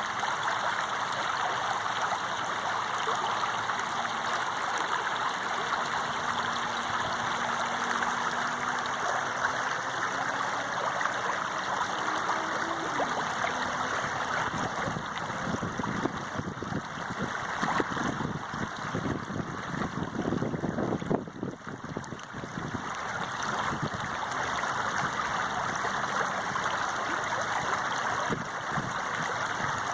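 Running water flowing steadily, like a stream, with heavier splashing in the middle and a brief dip about two-thirds through.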